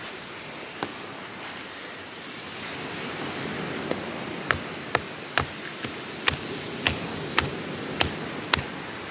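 Coconut husk being scraped and torn apart by hand with a piece of stone, giving a run of about ten sharp snapping cracks, roughly two a second, starting about four seconds in, over a steady rush of surf.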